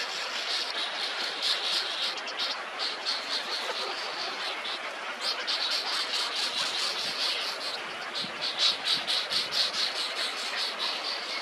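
Fast, high-pitched chirping, short notes repeated several times a second, over a steady hiss of forest background.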